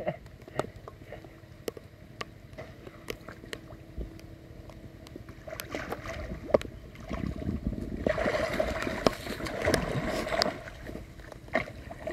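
Water splashing and sloshing as people move through a pond to check a gill net, louder and more continuous from about seven seconds in until near the end, with scattered small clicks and taps before that.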